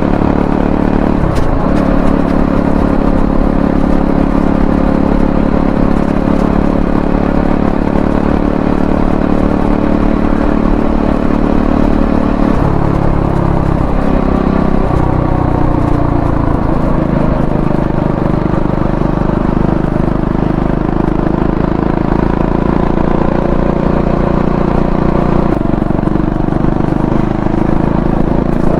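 Triumph Scrambler 400X's single-cylinder engine running under way, its note mostly steady, with a brief dip about a second in and several drops and rises in pitch around the middle.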